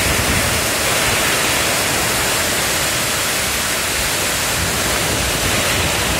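Steady rushing roar of a muddy flash-flood torrent pouring down a slope, mixed with heavy rain.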